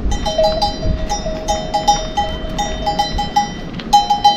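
Small metal bells clinking over and over in quick, uneven clusters of strikes, two bells of slightly different pitch ringing together.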